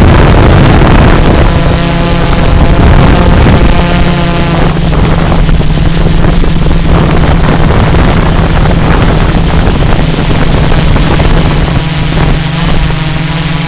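Multirotor drone's motors and propellers buzzing steadily at close range, recorded by the camera it carries, with wind noise on the microphone. The pitch shifts a little in the first few seconds.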